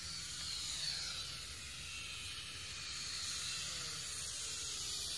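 Syma X5C-1 toy quadcopter's motors and propellers whining in low flight. The high-pitched buzz slides down in pitch over the first couple of seconds as the drone turns.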